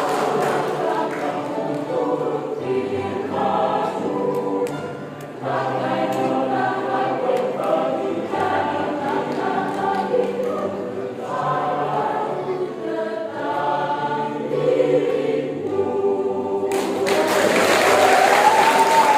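Church choir singing a Christmas hymn in several parts. About seventeen seconds in, the singing ends and applause breaks out.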